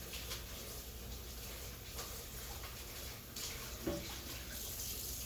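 Kitchen tap running water into the sink as dishes are handled, with a single knock of a dish about four seconds in.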